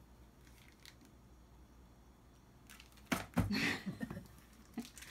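Quiet room, then about three seconds in a short burst of clicks and rustling from objects being handled, with a brief wordless voice sound mixed in; a couple of lighter clicks follow near the end.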